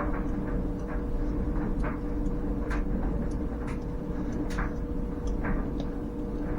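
A steady low mechanical hum with two held tones and a rumble beneath, with scattered light clicks and ticks over it.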